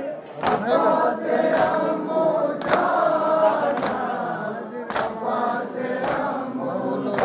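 A crowd of men chanting a noha together, with sharp slaps of hands striking chests (matam) about once a second, keeping time.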